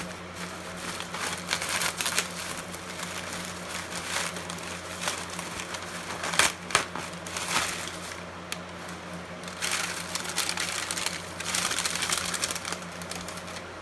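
Packaging being cut open and unwrapped around a circuit card: irregular crinkling and rustling with a few sharper crackles.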